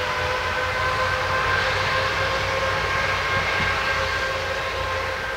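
Arriva SA133 diesel railcar pulling out of the station, its running gear and engine giving a steady whine over rumbling noise that begins to fade near the end as it moves away.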